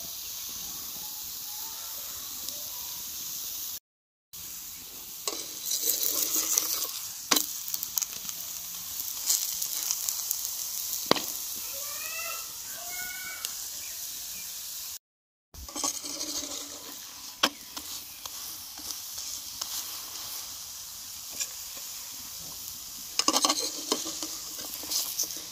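Mooli paratha frying in ghee on a tawa: a steady sizzle, with a metal spatula scraping and tapping against the pan now and then as the paratha is turned.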